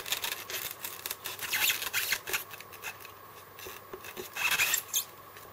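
A die-cast model truck being worked out of a fitted styrofoam packaging tray: foam and model rubbing and scraping, with small clicks, in a few short bouts.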